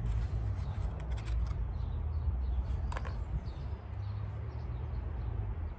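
Outdoor background: a steady low rumble with faint bird chirps, and one light click about three seconds in.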